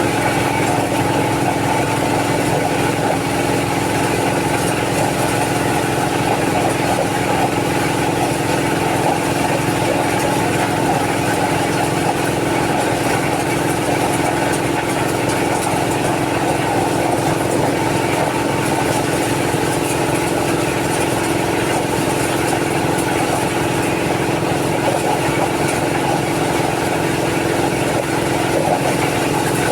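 Engine-driven corn-processing machine running steadily at constant speed.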